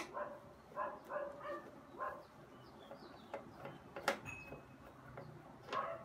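A dog whimpering and yipping in short repeated calls, with a few sharp clicks of a screwdriver on the ceiling fan's cover screws, the loudest click about four seconds in.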